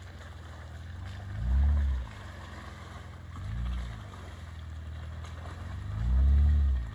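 Honda Ridgeline's V6 engine crawling through mud, its revs rising and falling three times, the first and last rises the loudest.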